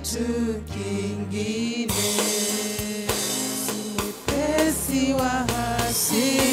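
Swahili gospel worship song: a woman singing into a microphone over a backing of bass and drums, with a cymbal crash about two seconds in.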